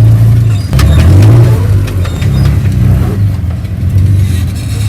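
Truck engine sound effect for an electric RC crawler, a low steady engine rumble that shifts in revs about a second in.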